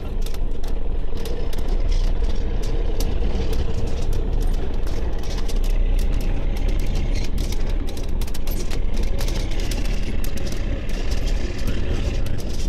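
Heavy vehicle's engine running steadily with a low rumble, overlaid by frequent sharp cracks and clanks.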